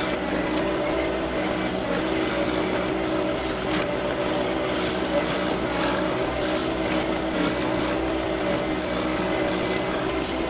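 John Deere 2025R compact tractor's diesel engine running steadily while it works the backhoe.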